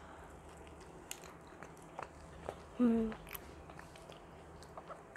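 A person chewing a mouthful of sandwich close to a clip-on microphone, with soft, scattered small mouth clicks and smacks. About three seconds in there is a brief hummed "mm".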